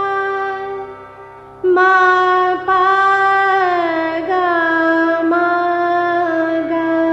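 Hindustani classical music in raag Purvi, a chhota khyal: a melodic line of long held notes, breaking off briefly about a second in and returning, then gliding slowly down to a lower held note, over a steady low drone.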